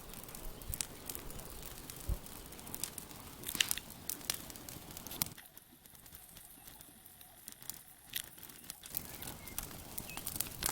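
Bonfire of dry rubbish catching, crackling with irregular sharp snaps and pops, a few louder ones standing out.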